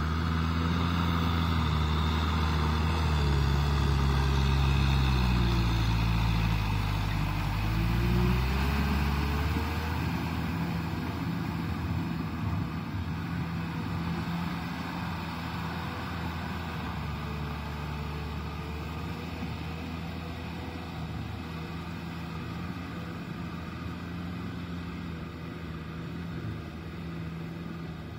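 Kubota M6040SU tractor's four-cylinder diesel engine running under load as it drives a rotavator through wet mud. The engine note sags and picks up again about a quarter of the way in, then settles and fades as the tractor pulls away.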